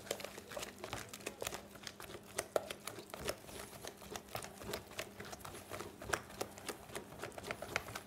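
Wooden spoon stirring a sticky flour, water and yeast starter in a plastic bowl: a run of quick, irregular clicks and scrapes.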